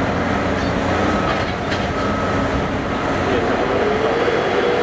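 Cat 385C hydraulic excavator's diesel engine and hydraulics working under load as it lifts a large precast concrete box: a steady heavy drone, with a tone that rises about three seconds in and then holds.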